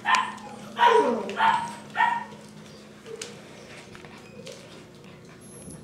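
Standard poodle puppy giving four short, high-pitched yips in quick succession.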